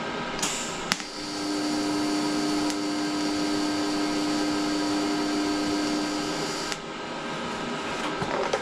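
TIG welding arc on thick steel plate. A sharp click about a second in as the arc strikes, then a steady buzzing hum for about six seconds that cuts off suddenly, over a constant background hum.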